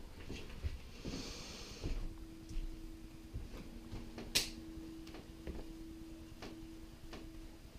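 Carving knife working through a beef rib roast on a wooden cutting board, faint: a brief scraping hiss about a second in and one sharp click about halfway through. A steady low hum starts about two seconds in.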